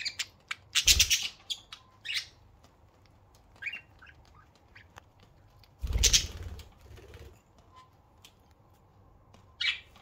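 Budgerigars giving short chirps and squawks among scattered small clicks, with two louder rustling bursts, about a second in and around six seconds in.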